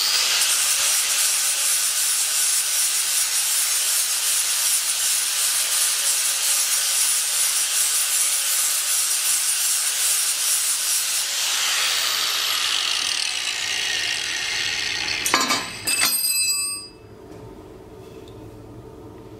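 Angle grinder grinding a weld on a motorcycle exhaust pipe, a steady high hiss for about eleven seconds. The grinder is then let off and spins down with a falling whine. A few metal clanks with a brief ring come near the end, then only a low workshop hum.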